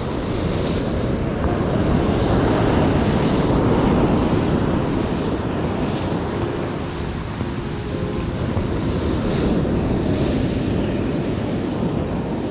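Sea surf washing in, mixed with wind buffeting the microphone, swelling up twice.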